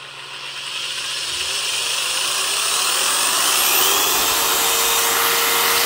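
Black & Decker DR260 corded 3/8" drill with a 5.5 amp brushed motor, run up on its variable-speed trigger. The motor whine rises steadily in pitch and loudness over about three seconds, then holds at full speed with a strong rush of air from the motor's cooling fan.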